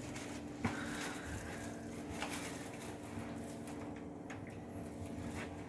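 A steady low hum that starts suddenly, with a few scattered clicks and rustles over it, the sharpest click under a second in.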